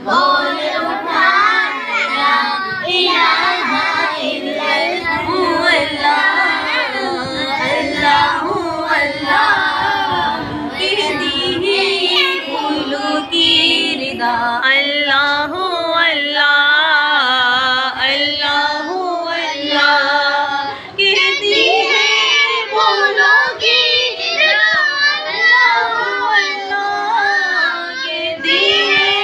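Group of young boys singing together in high children's voices, a continuous sung recitation with wavering held notes.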